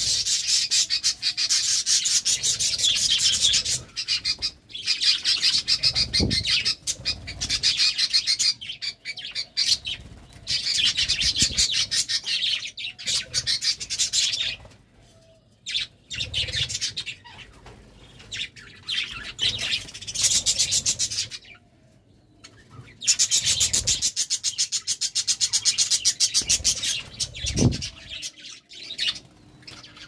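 A flock of budgerigars chattering and warbling, in stretches of a few seconds broken by short lulls, with the odd flutter of wings as birds fly about.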